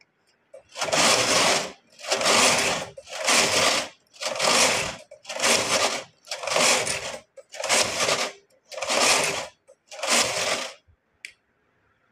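Brother knitting machine carriage slid back and forth across the needle bed, knitting row after row: about ten passes in a row, each a rattling swish of about a second, then a single click near the end.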